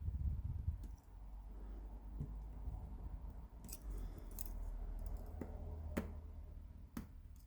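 Small metal picking tools working the pins of an 8-pin tubular cam lock, giving a few sharp metallic clicks in the second half over a low handling rumble.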